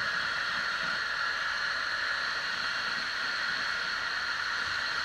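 Power sander running steadily against a boat hull, sanding off the old epoxy laminate: an even, unbroken hiss.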